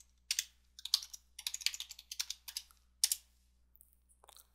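Typing on a computer keyboard to enter login details: a run of quick, irregular keystrokes that stops about three seconds in, with a few faint clicks near the end.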